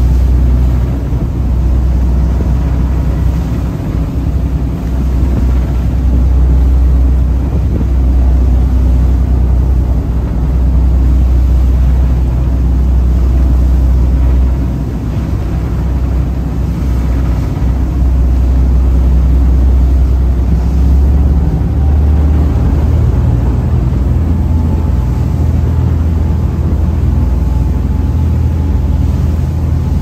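Twin diesel engines of a Viking 64 sportfishing yacht running at cruise speed, a deep steady drone, with the rush of the churning wake behind the stern.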